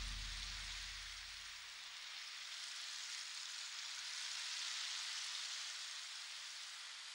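Slide-show background music dying away in its first second and a half, leaving a soft, even rain-like hiss that swells and eases off again.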